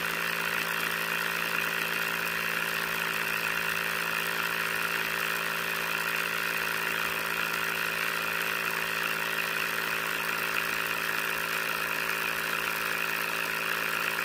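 A small electric motor running steadily, turning a toy drill auger as it bores into sand.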